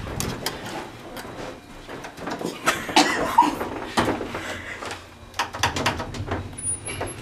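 Quick footsteps and scattered knocks and clicks as people hurry into an elevator, with the elevator's sliding doors and a brief muffled voice about three seconds in.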